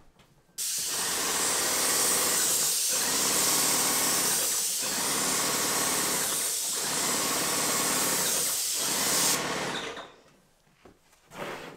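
Airless paint sprayer in use: the spray gun hissing as it atomises paint, with the pump's drone underneath. It starts abruptly about half a second in, dips about every two seconds, and cuts off abruptly about nine seconds in. The pressure is turned up to about 3.5 to cut down the tails at the edges of the fan pattern.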